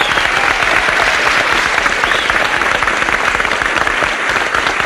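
A crowd applauding steadily.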